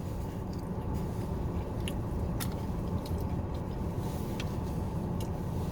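A person chewing food, with scattered faint clicks, over the steady low hum of a car cabin.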